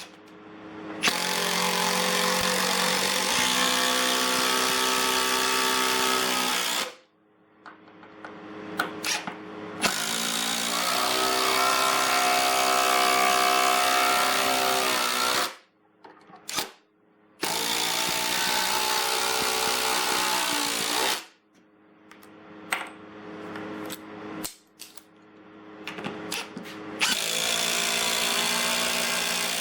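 Ryobi 18V brushless three-speed impact driver driving screws into wood, hammering under load in four long runs of several seconds each. In the short pauses between runs there are a few clicks as the next screw is set.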